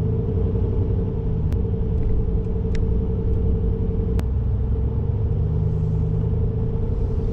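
Pickup truck driving slowly, heard from inside the cab: a steady low rumble of engine and road noise with a constant hum, and a few sharp clicks.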